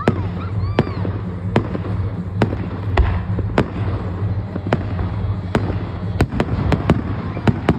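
Aerial fireworks bursting: a quick, irregular run of about a dozen sharp bangs over a steady low background rumble.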